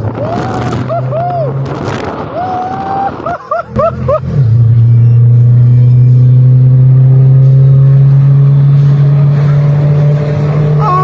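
Car engine heard from inside the cabin, held at high revs as a loud steady drone that sets in about four seconds in, with passengers whooping and shouting over the first few seconds.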